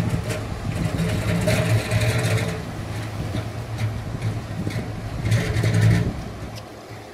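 An engine running steadily with a low hum, with two swells of rushing noise, then dying down near the end.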